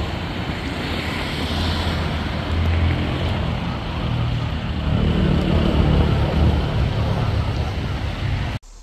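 Road traffic: cars driving past with a steady low engine and tyre rumble that grows louder a little past the middle.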